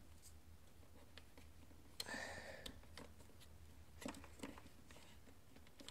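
Near silence: a low room hum with a few faint scattered clicks and one brief rustle of handling, about two seconds in.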